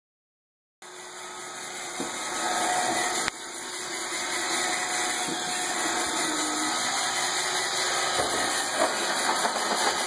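Roomba robot vacuum running: a steady whirring hiss of its suction motor and brushes, starting about a second in. A single sharp click a little after three seconds.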